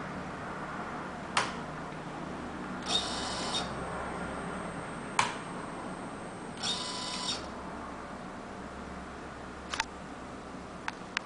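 Balloon-catheter heat-set machine running through its cycle: a steady low hum with sharp mechanical clicks every few seconds, a double click near the end, and two short hisses, each about half a second long.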